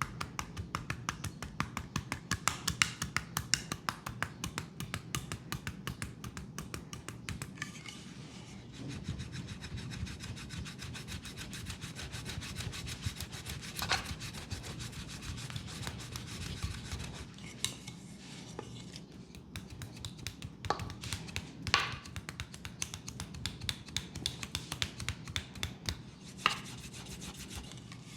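Fast rubbing strokes of a leg massage, a quick even run of short strokes at first, then steadier continuous rubbing. A few sharper clicks stand out in the second half.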